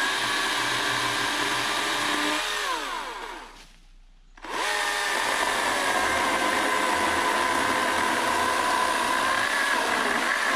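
Small Husqvarna chainsaw cutting through a birch log. It runs at full speed, winds down and stops about three seconds in, then speeds up again and cuts steadily on. The log is a little big for so small a saw.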